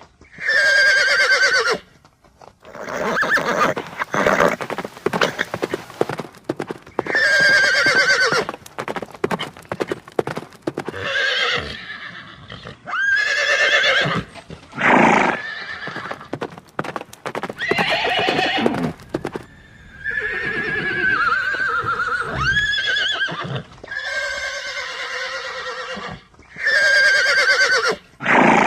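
Horse neighing and whinnying again and again, each call lasting one to three seconds. Between the calls come stretches of quick knocking from hooves clip-clopping.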